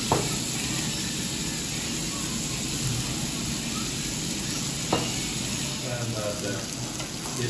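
Chunks of raw pork neck, belly and jowl sizzling steadily on a hot round tabletop barbecue grill. Metal tongs click once at the start, and there is another sharp click about five seconds in.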